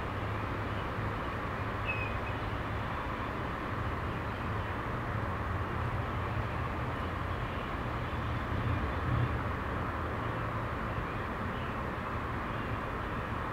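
Steady outdoor background noise: a low hum under an even hiss, with a faint short chirp about two seconds in.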